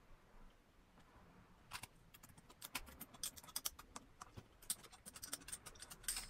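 Faint, irregular light clicks and taps of the throttle position sensor and its screws being handled and fitted onto a Toyota 4A-GE throttle body, starting about two seconds in.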